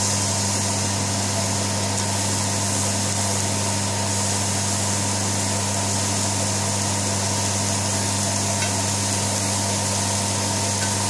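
Kitchen cooker hood extractor fan running: a steady low hum with an even airflow hiss, unchanging throughout.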